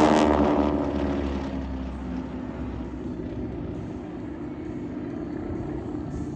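Formation of propeller-driven aerobatic airplanes passing and flying away, the engine drone dropping in pitch and fading over the first two seconds, then carrying on as a steadier, quieter drone.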